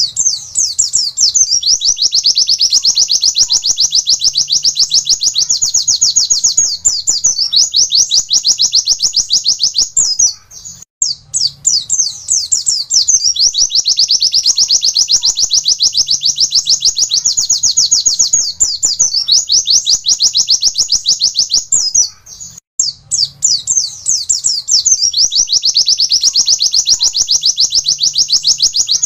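Caged white-eye (pleci) singing a long, rapid run of high repeated 'wit-wit' notes in long unbroken phrases, with a brief pause about ten seconds in and again about twenty-two seconds in.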